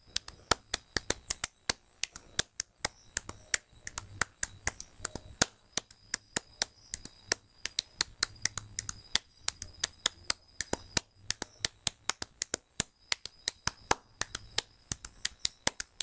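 A rapid, uneven series of sharp clicks, several a second, over a faint low hum.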